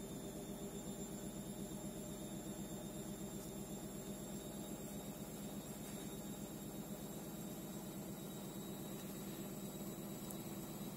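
Steady low electrical hum and hiss with a faint high whine; a few faint clicks, the last as the pick goes into the brass padlock's keyway.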